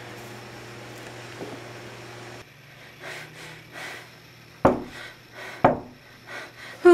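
Two loud knocks on a wooden door about a second apart, followed by a couple of lighter knocks.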